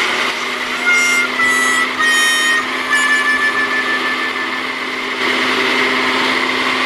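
Countertop blender motor running steadily, chopping up chicken nuggets, with a constant low hum. A few short high-pitched tones come in between about one and three seconds.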